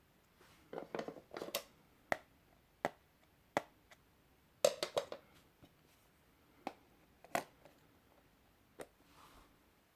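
Handling noises: a series of about a dozen sharp clicks and taps at irregular intervals, with a soft rustle among the first few and a quick cluster about halfway through.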